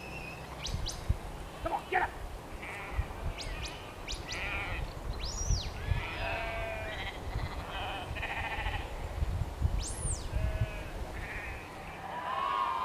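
A flock of ewes and lambs bleating, with many short calls overlapping throughout, as the lambs and their mothers call to find each other.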